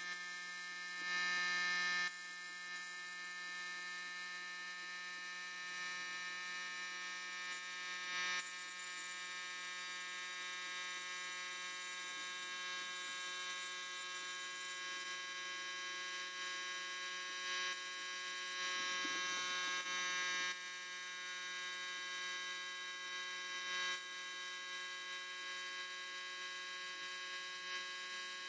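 Abrasive blast cabinet with a steady electric hum, broken by a few short bursts of blasting hiss from the air-fed blast gun. The longest burst, about two seconds, comes two-thirds of the way through.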